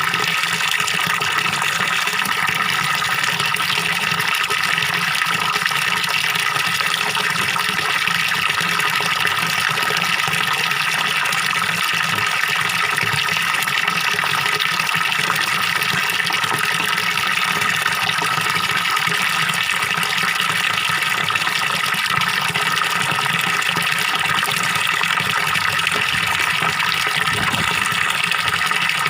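Small waterfall pouring steadily into a fish pond, a constant splashing and gurgling of water.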